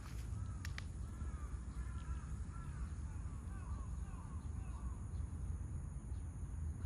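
Birds calling over and over, many short arched calls overlapping, over a steady low rumble.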